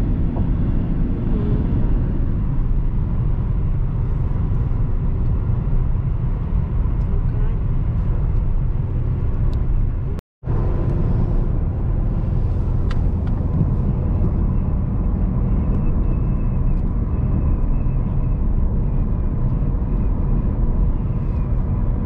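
A car driving: steady low rumble of engine and tyre noise on the road, broken by a brief moment of silence about ten seconds in.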